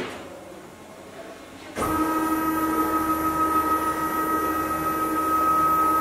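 Workshop machinery by a woodworking CNC router starts up suddenly about two seconds in and runs steadily: a loud hum with a steady high whine over it.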